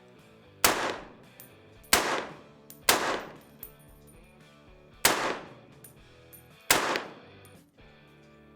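Five rifle shots fired at an uneven pace, each a sharp crack with a ringing tail, over background music.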